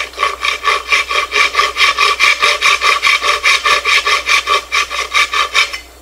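Small back saw cutting into wood with quick short strokes, about five a second, stopping shortly before the end. The cut is made at the edge of a lock mortise so the router bit will not chip the wood.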